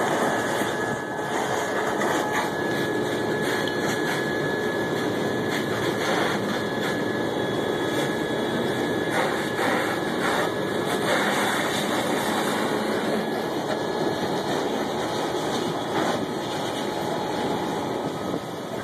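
A steady drone of running engines with a rushing noise over it.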